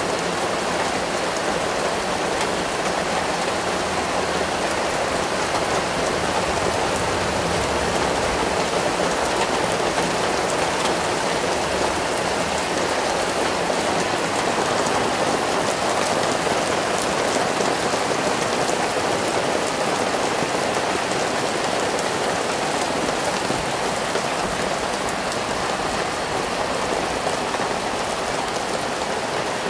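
Heavy rain pouring down steadily: a dense, even hiss of drops with no letup.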